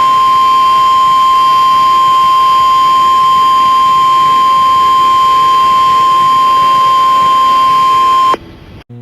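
NOAA Weather Radio's 1050 Hz warning alarm tone for an Emergency Alert System activation: one loud, steady, high-pitched tone that cuts off abruptly about eight seconds in.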